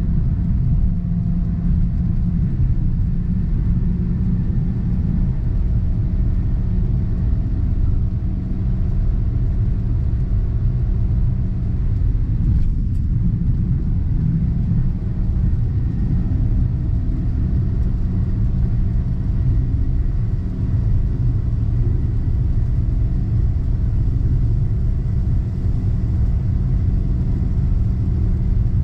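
Interior cruising noise of a 2023 Toyota Avanza with a 1.3-litre CVT: a steady low road rumble with an even engine hum, heard from inside the cabin. The hum dips briefly about halfway through.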